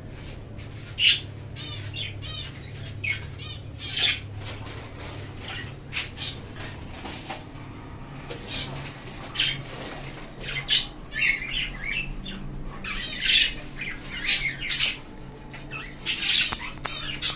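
Caged budgerigars squawking and chattering in short, scattered high calls, with wings fluttering now and then, over a steady low hum.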